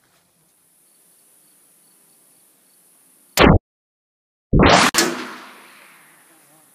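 Two loud blasts from a Saiga 410 semi-automatic shotgun about a second apart, with a moment of dead silence between them. The second rings out in a long fading echo.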